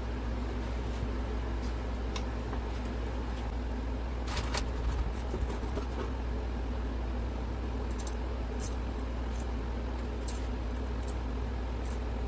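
Light metallic clinks and clicks of hand tools and small engine parts being handled, loudest about four and a half seconds in and again around eight to nine seconds, over a steady low hum like a shop fan.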